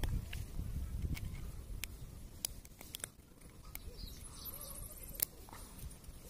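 Light, scattered metal clicks and ticks of a piston ring being worked by hand into its groove on an aluminium piston.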